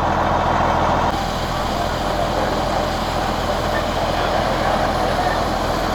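Fire apparatus engines running steadily at a working fire, a low constant hum under a broad haze of noise, with an abrupt change in the background about a second in.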